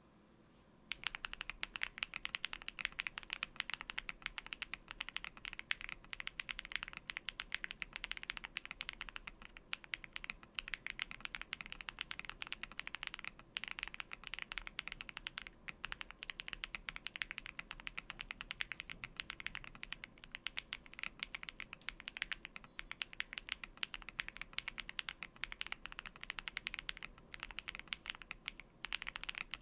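Typing on a Meletrix Zoom65 V2 mechanical keyboard with lubed BSUN Hutt switches and PBT cherry-profile keycaps: a fast, continuous run of keystrokes starting about a second in.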